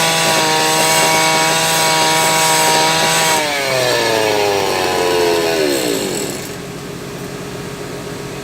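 A motor running steadily at high speed, then winding down in pitch over about three seconds, from a little past three seconds in, to a lower, quieter steady hum.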